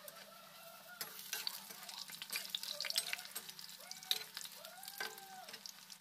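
Bottle-gourd and gram-flour kofta balls sizzling and crackling as they deep-fry in hot oil in an iron kadhai, with a steel slotted spoon stirring and turning them in the oil.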